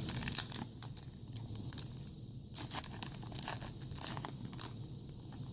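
Foil trading-card pack wrapper and cards being handled: irregular rustling and crinkling, busiest in the first second, with scattered bursts after.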